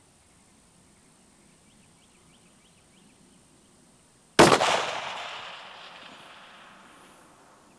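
A single shot from a Tikka T3X bolt-action rifle in 6.5 Creedmoor, a little over halfway through, its report echoing and fading away over the next three seconds.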